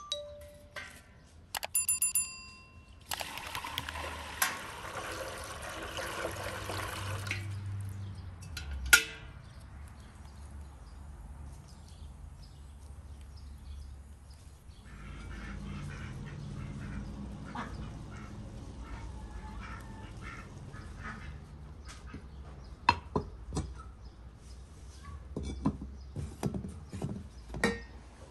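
A large metal cooking pan clanks and rings as it is set on its stand over a wood fire. A few seconds of rushing noise follow. Then the wood fire crackles steadily under the pan while chickens cluck, with a few sharp knocks near the end.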